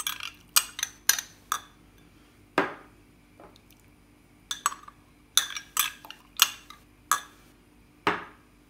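Metal spoon clinking and scraping against a small drinking glass and the rim of a steel cooking pot, in scattered sharp taps with a quiet stretch in the middle. The spoon is scraping out ground turmeric that has stuck to the glass from the steam.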